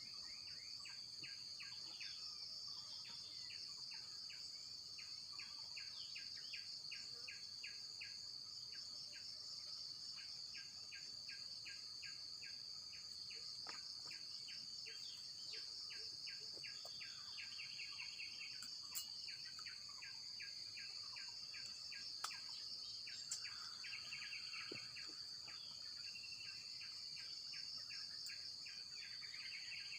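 Outdoor insect chorus: a steady high-pitched drone of crickets or cicadas, with repeated short chirps at an even pace and a few faint clicks after the middle.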